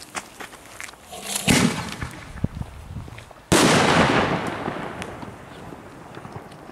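Homemade 3-inch (75 mm) ball shell firing: a loud launch thump about a second and a half in, then a sharp, louder bang about three and a half seconds in as the shell bursts with its titanium salute centre, the report rolling away over about two seconds.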